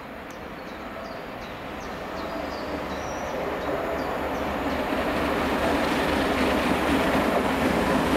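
Steam locomotive 46100 Royal Scot hauling its railtour train on the mainline, approaching and growing steadily louder, with the clatter of wheels on the rails.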